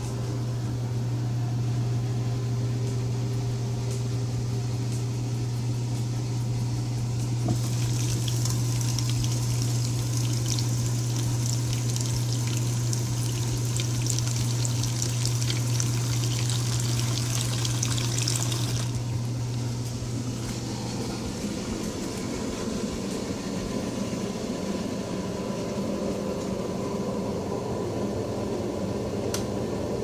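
Dishwasher drain pump running with a steady low hum, pumping out sudsy water left by too much regular dish soap. From about a quarter of the way in to about two-thirds in, water splashes and rushes into the kitchen sink, and near the end the pump's hum changes.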